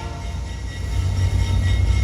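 A freight train's diesel locomotives rumbling steadily, growing louder about halfway through, with the tail of a horn blast dying away at the start.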